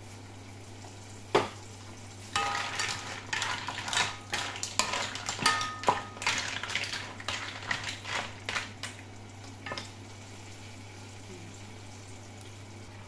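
Mussel shells clattering against each other and the non-stick frying pan as they are stirred with a wooden spatula: a dense run of clicks and knocks, some ringing briefly, from about two seconds in until about nine seconds. A single sharp knock comes about a second in, and a steady low hum runs underneath.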